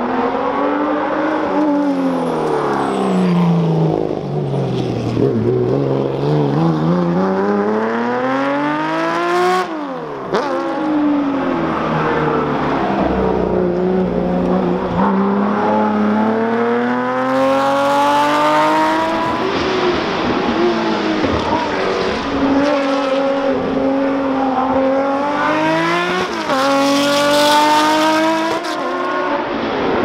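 Porsche 911 SC rally car's air-cooled flat-six engine revving hard. Its note climbs and falls again and again, with a sharp drop in pitch about ten seconds in.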